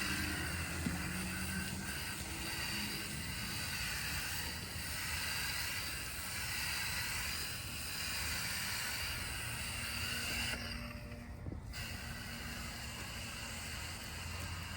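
Water spray hissing steadily as it rinses cleaner off a clogged HVAC condenser coil. The spray drops away briefly about ten and a half seconds in, then carries on a little quieter.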